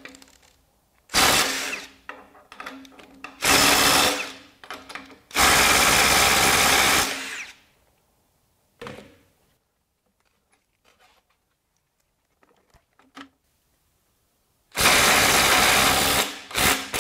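Ryobi One+ HP brushless impact driver hammering in reverse in four bursts of one to two seconds, breaking loose nuts torqued up to 150 foot-pounds. The longest burst comes about five seconds in, and there is a long pause before the last one.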